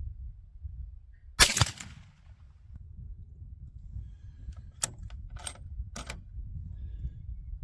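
A single suppressed shot from a 7PRC bolt-action rifle about a second and a half in, with a short ringing tail. It is followed by three sharp metallic clicks as the bolt is worked.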